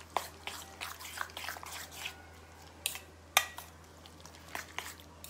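A spoon stirring mashed eggplant bharta in a pan: irregular light clinks and taps of the spoon against the pan, the sharpest about three and a half seconds in.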